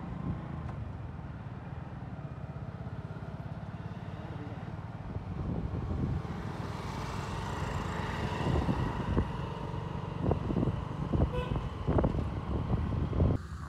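Road traffic: vehicle engines running, with horns tooting now and then and a series of sharp knocks in the second half. The sound cuts off suddenly just before the end.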